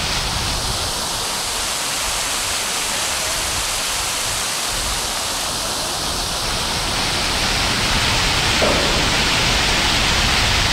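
Steady, loud rushing noise, spread evenly from low to high pitch, with no distinct events.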